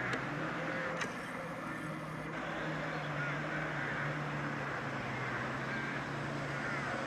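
Steady low hum of a diesel locomotive engine idling, with faint high chirps over it.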